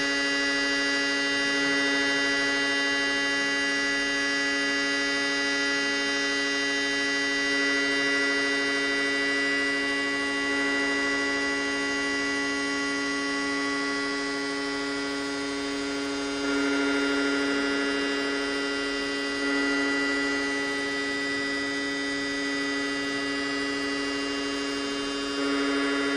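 Dense electronic drone from a live set of modular synthesiser and sonified-light noise devices: a steady buzzing hum of many held tones. It jumps up in level three times in the second half.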